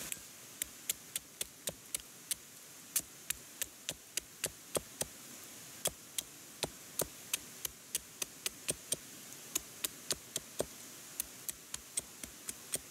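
A series of sharp, irregular clicks of varying loudness, about three a second.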